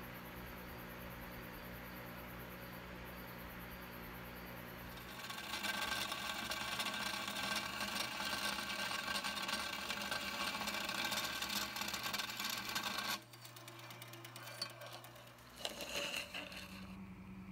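Scroll saw running, then cutting through a thin board from about five seconds in until about thirteen seconds, much louder while it cuts. After the cut it runs on more quietly.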